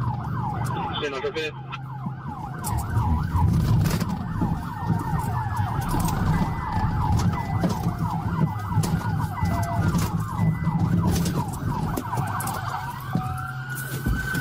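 Police car siren in a fast yelp, changing near the end to a slower rising-and-falling wail, over a low rumble.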